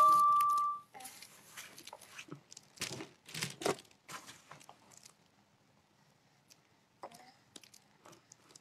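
Clear plastic sheeting crinkling and crackling in short bursts under a toddler's hands and legs. A brief loud, steady high tone sounds at the very start, and the crinkling fades to near quiet after about four seconds, with a couple of faint clicks near the end.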